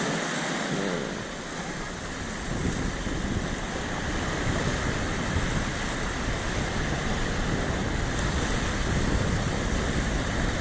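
Wind buffeting the microphone over a steady wash of surf. The low rumble of the wind grows stronger about two and a half seconds in.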